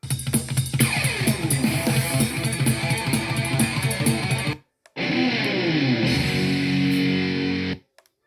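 Monster Adventurer Force Bluetooth speaker playing rock music with guitar and drums. The music cuts off abruptly about four and a half seconds in, starts again half a second later, and cuts off again near the end.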